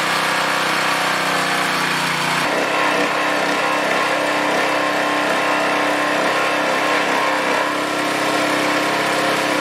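Single-cylinder four-stroke 168F-1 6.5 hp petrol engine of a gasoline pressure washer running steadily just after being pull-started. About two and a half seconds in its note changes, then holds steady.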